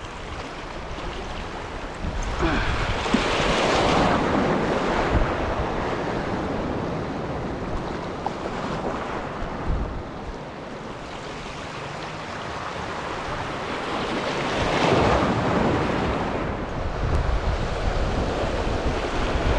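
Sea waves washing over a rocky shoreline reef, swelling into a louder surge twice, about three seconds in and again near fifteen seconds, with wind buffeting the microphone.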